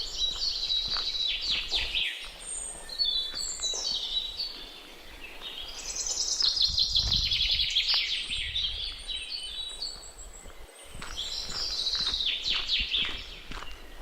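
A songbird singing the same phrase three times, each a rapid run of high notes that falls in pitch over about two seconds, with pauses of a few seconds between phrases.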